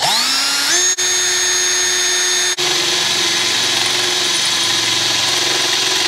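18V cordless drill on its slow-speed setting, spinning up with a rising whine and then running steadily as the bit bores a 5 mm hole through the steel rear mudguard of a motorcycle. The motor dips briefly about a second in and again about two and a half seconds in.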